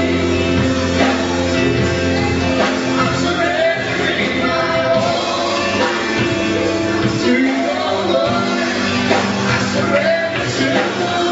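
Live church worship music: a band playing a song, with held chords, a steady beat and voices singing, ringing in a large hall.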